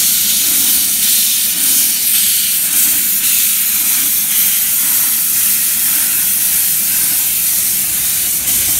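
Steady loud hiss of steam blowing from the open cylinder drain cocks of the Quarry Hunslet 0-4-0 saddle tank locomotive "Maid Marian" as it rolls past.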